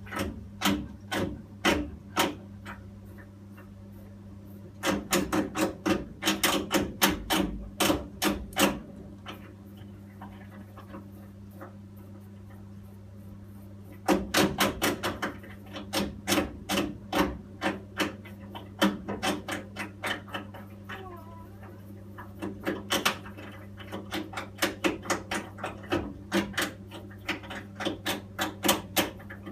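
A boiler making rapid, irregular clicking and tapping in bursts lasting a few seconds, with quieter gaps between, over a steady low hum.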